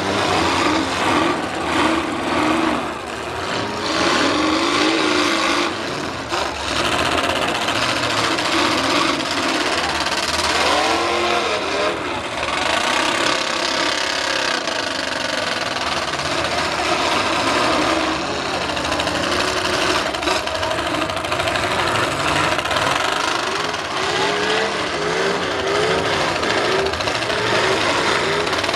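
Several V8 demolition derby cars' engines revving, their pitch rising and falling as the cars push and ram each other, with a few sharp crash thuds early on.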